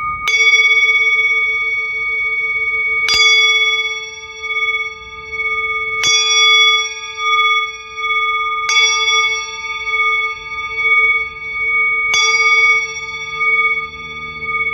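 Metal singing bowl struck five times, about every three seconds, each strike ringing on in a long wavering hum with several overlapping tones.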